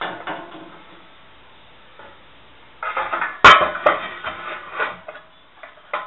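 Metal parts of a Thor washer's dishwasher attachment knocking and clanking against the tub as they are handled: one clank at the start, then a cluster of knocks about three seconds in, the loudest around three and a half seconds, each ringing briefly.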